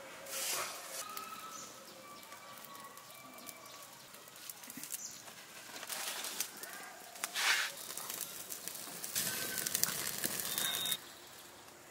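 Open wood fire crackling and flaring as a plucked duck is held in the flames to singe it, loudest for about two seconds near the end before cutting off suddenly. Birds call faintly in the background.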